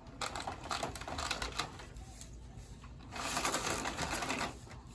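Toy train track pieces clicking and clattering as they are handled, with a stretch of rustling about three seconds in.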